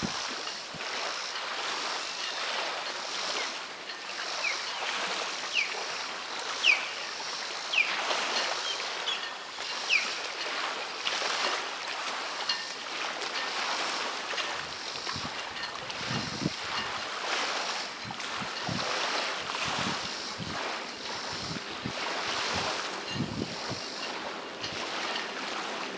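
Waterfront ambience: steady wind and small waves lapping around a dock, with a few short, sharp bird chirps in the first half and soft low thumps in the second half.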